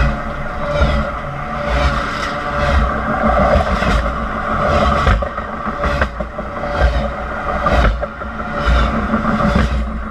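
Train cars rolling directly over the microphone: a loud, continuous rumble and metallic screech, with wheels clacking about once a second.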